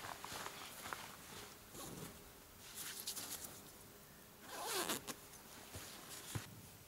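Tent door zipper being pulled in several short runs, the longest and loudest about two-thirds of the way through, with a couple of light clicks near the end.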